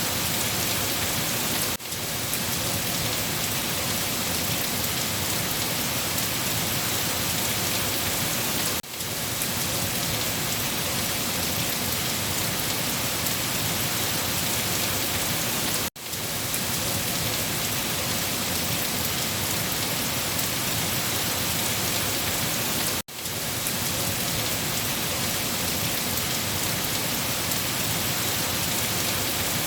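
Steady heavy rain falling, an even hiss and patter, which drops out for an instant about every seven seconds, four times.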